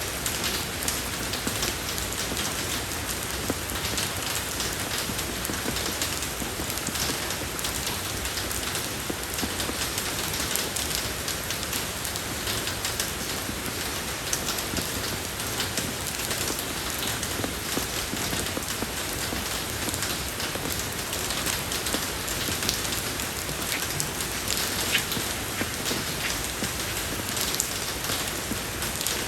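Steady rain falling on a road surface, an even patter with many small drop ticks.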